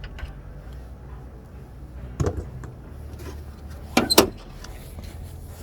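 A few sharp knocks and clacks over a low steady hum: one about two seconds in, then a quick cluster of three louder ones about four seconds in.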